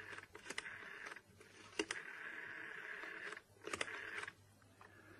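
Rotary telephone being dialled: four whirring runs of the dial returning, of different lengths, each begun and ended by a click.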